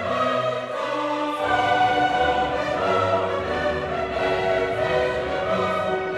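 Orchestral music with sustained strings and choir-like voices. A deeper bass layer comes in about a second and a half in.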